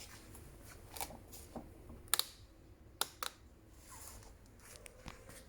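Scattered sharp clicks and knocks over a faint low hum, the loudest coming as two quick pairs about two and three seconds in.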